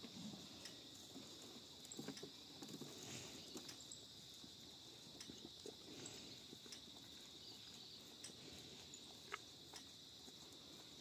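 Faint sounds of two cows feeding at a trough: soft, irregular rustling and a few light knocks over a steady faint high hiss.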